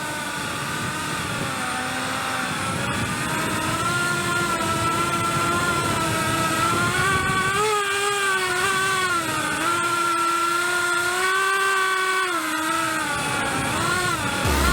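Cinewhoop FPV quadcopter's brushless motors whining, the pitch rising and falling continuously with throttle changes.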